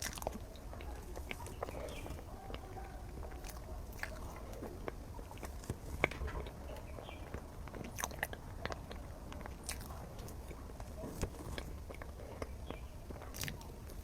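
Close mouth sounds of someone biting and chewing a chocolate lava mille-crepe cake, with many short scattered clicks.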